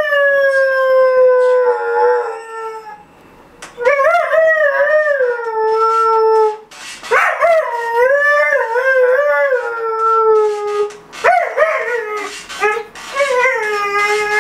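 A Dalmatian puppy howling, set off by the ringing alarm clock. It gives a run of about five long howls with short breaks between them, each starting high and sliding slowly down.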